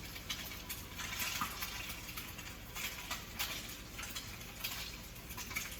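Goose egg frying in butter in a pan, with a steady sizzle and frequent small crackles and pops.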